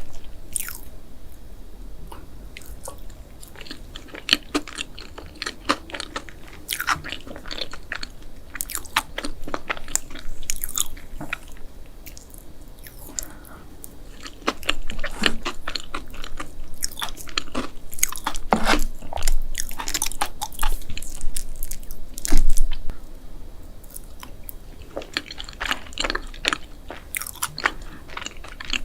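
Close-miked mukbang eating: chewing and biting with many crisp crunches, busiest and loudest in the middle stretch, with one especially loud crunch a little past the middle.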